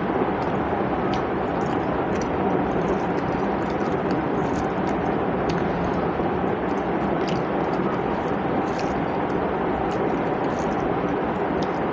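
A steady rushing noise with faint, irregular mouth clicks and smacks of a person chewing a mouthful of rice and curry eaten by hand.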